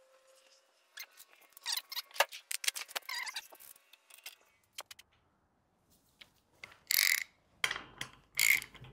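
Metal tools and bead roller parts being handled on a steel drill press table: scattered clinks, taps and light scrapes. Near the end come a few louder metallic knocks as parts are fitted together.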